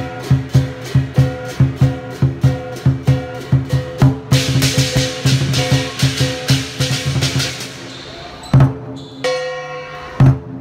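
Lion dance percussion: a large drum beating a steady rhythm of about three strokes a second with ringing gong and cymbals. About four seconds in the cymbals crash in a dense roll for a few seconds, then the beat thins out to a few single heavy strikes.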